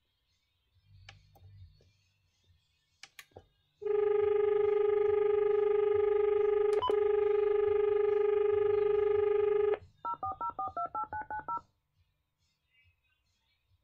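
Panasonic KX-T2727BS telephone on hands-free: soft button clicks, then a steady dial tone through the phone's loudspeaker for about six seconds with one key click in the middle. After that comes a quick run of about ten touch-tone (DTMF) digits as a stored number is dialled from a memory key.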